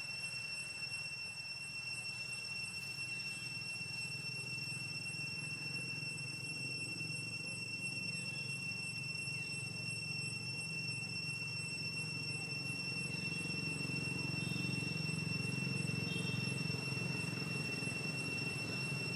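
Steady, high-pitched insect drone, like a cricket or cicada, running without a break over a low rumble that grows louder in the second half. Two short chirps come near the end.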